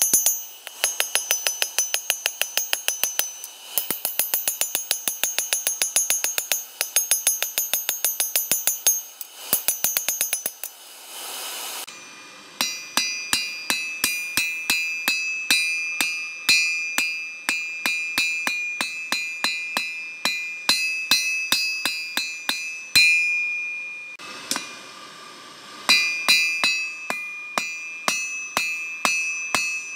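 Hand hammer beating red-hot leaf-spring steel on a 180-pound anvil: fast, steady blows, each with a high metallic ring from the anvil. The hammering stops briefly twice, about a third of the way in and again past the middle, then resumes.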